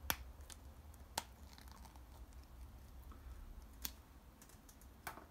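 Sharp plastic clicks, about four of them spread over a few seconds, as the hinged snap-cap lid of a plastic spider shipping vial is worked with the thumb.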